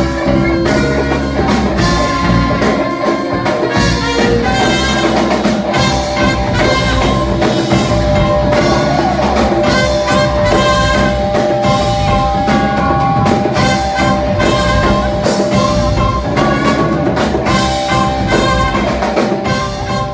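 Live band playing a groove-based world-music piece that mixes oriental melody with funk: drum kit and electric bass keep a steady beat under guitar, flute and horn. A lead instrument holds one long steady note through the middle.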